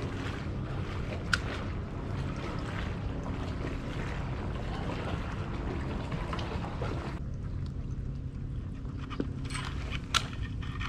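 Water lapping and trickling against a fishing kayak's hull among dock pilings, with a steady low rumble of wind on the microphone. Two sharp clicks stand out, one about a second in and one near the end; the higher hiss drops away about seven seconds in.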